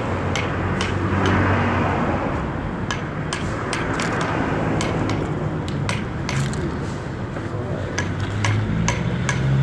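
Plastic toy excavator digging and scraping in dry dirt, its plastic parts clicking and clattering at uneven intervals, over a low steady hum.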